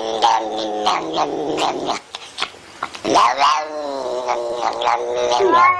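A cat yowling in long, drawn-out wails, with a short quieter pause about two seconds in before one long rising-and-falling howl.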